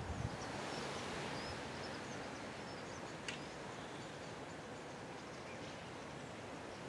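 Faint high chirps and twitters from a large murmuration of starlings over a steady rushing hiss, with one sharp click about three seconds in. Wind buffets the microphone briefly at the start.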